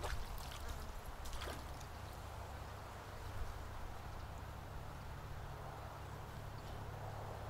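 Wind buffeting the microphone, a steady low rumble, with a couple of short faint clicks in the first two seconds.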